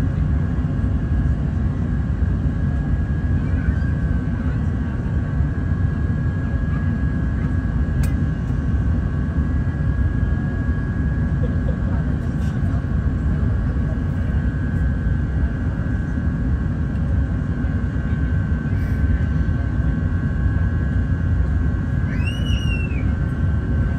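Steady jet engine noise: a continuous low rumble with a steady high whine over it. A single bird chirp near the end.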